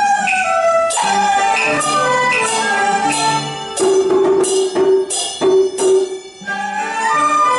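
Chinese traditional instrumental ensemble playing a Hakka folk melody: struck yangqin (hammered dulcimer) and plucked pipa notes under dizi flutes, with a regular beat of struck attacks.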